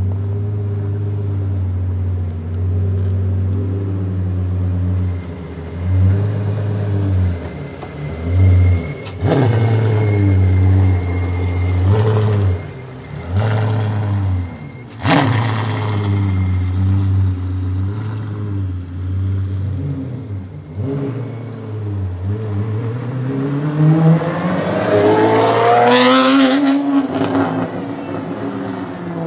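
De Tomaso P72 prototype's 6.3-litre naturally aspirated V12 idling, blipped up several times, with sharp cracks from the exhaust on a couple of the blips. About three-quarters of the way through it revs up in one long rising sweep, then drops back.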